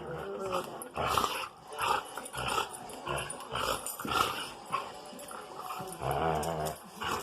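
Dogs vocalising in a quick string of short sounds, with a low growl about six seconds in.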